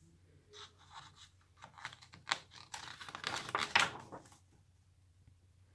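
A page of a hardcover picture book being turned by hand: soft paper rustles and light taps over about four seconds.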